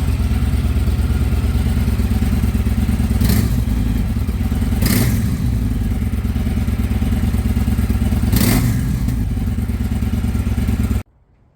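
Victory Judge's 106 cubic inch V-twin running steadily through its stock baffled OEM mufflers, a sound the owner finds too quiet and lame for a muscle cruiser. Three brief louder bursts break in, and the sound cuts off abruptly near the end.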